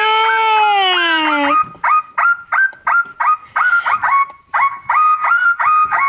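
Electronic 'viral brake' sound module on a toy truck, set off by braking, playing its tune: a long honking tone that slides slowly down, then a melody of short beeping notes at about three a second.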